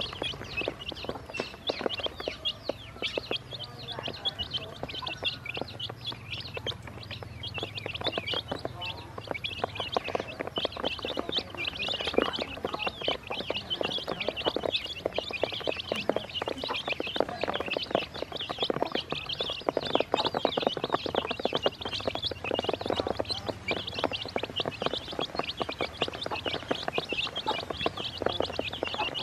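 A brood of baby chicks peeping nonstop, many short high chirps overlapping, with a patter of small taps as their beaks peck feed off a plastic basin.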